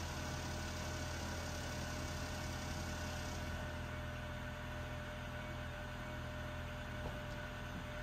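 Car engine idling, a steady low hum.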